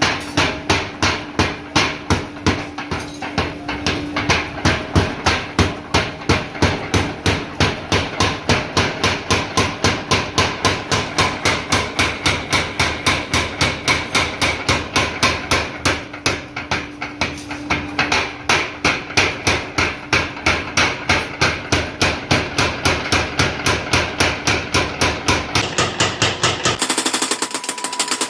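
Mechanical power hammer striking hot steel in a steady rhythm of about four blows a second. Near the end the blows turn faster and denser.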